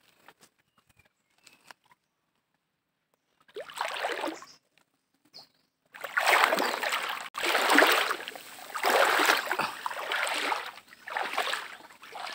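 River water sloshing and splashing as a person wades across, in uneven surges about a second apart. It is near quiet with faint ticks for the first few seconds, then one surge, and the strides grow loudest from about halfway through.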